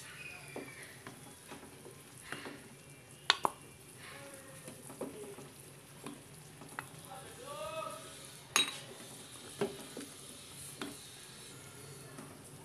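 A wooden spatula knocking and scraping against an aluminium pot while chicken pieces are lifted out of boiling stock, with the broth bubbling underneath. A few sharp knocks stand out, the loudest about three seconds in and again past eight seconds.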